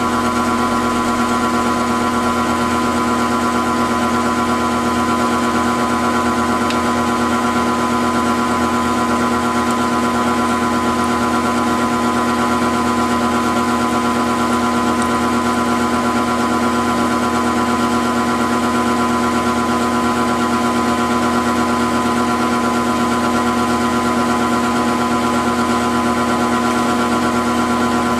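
Grizzly G0705 CNC milling machine running steadily, a constant mechanical hum with steady whining tones that do not change, while it mills a pocket in an aluminium block.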